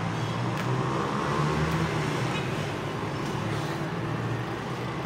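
A steady low mechanical hum, with a few light clicks as a plastic phone case and a paper leaflet are handled.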